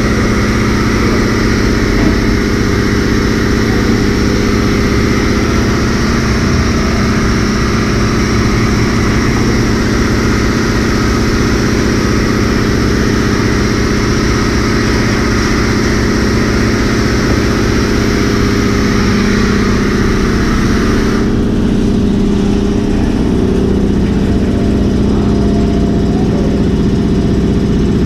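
High-pressure washer spray hissing over a steady mechanical drone from running machinery. About 21 seconds in, the spray hiss stops and the drone carries on.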